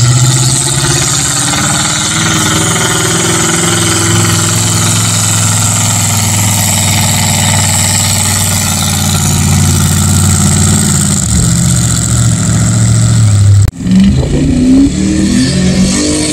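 Mud-bog 4x4 truck engine held at high revs for about thirteen seconds as it pushes through a mud pit. After a sudden break near the end, another truck's engine revs in quick rising bursts as it launches.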